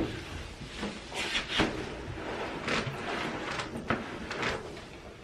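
Handling noises: a string of short knocks and rustles as things are moved about and packaging is handled, a few of them sounding like a cupboard or fridge door being worked.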